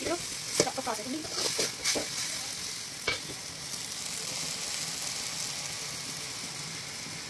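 Chopped tomatoes frying in a metal kadai, with a steady sizzle. In the first couple of seconds a spatula stirs and scrapes against the pan, and there is a single knock about three seconds in.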